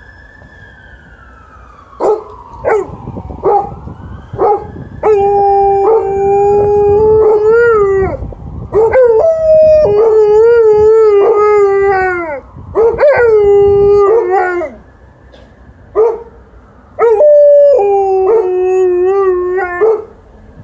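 Alaskan Malamute howling: a few short yelps about two seconds in, then a run of long howls that waver and slide in pitch, broken by short pauses, with a last howl near the end.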